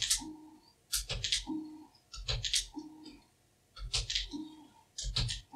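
Computer keyboard keys clicked in quick pairs (shift plus an angle-bracket key), each followed by a brief steady hum from the CNC microscope stage's stepper motor stepping the stage along the X axis, about four or five times at a slow even pace.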